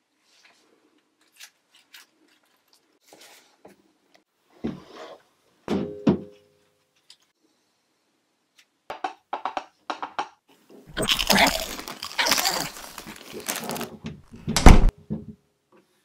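Handling noises in a small room: scattered clicks and knocks, a few seconds of rustling and clattering starting about eleven seconds in, and a loud thump near the end.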